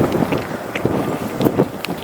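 Strong wind buffeting the microphone in irregular low thumps, with a few brief high chirps.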